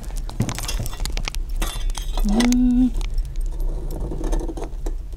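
Oven fork scraping and clinking against the hearth of a brick Russian stove and a clay pot as the pot is drawn out of the oven: a run of small knocks, clinks and scrapes.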